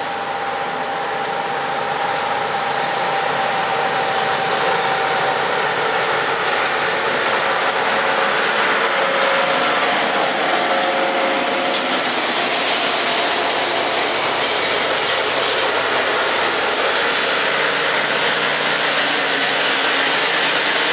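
Loram RG314 rail grinder passing close by while grinding the rail: a loud, steady, dense rasp of the grinding stones and machinery. It grows louder over the first couple of seconds as the grinder cars come alongside, then holds steady.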